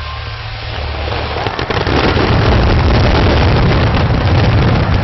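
Fireworks going off in a dense barrage: heavy low booms with a thick crackling rush that builds about a second and a half in.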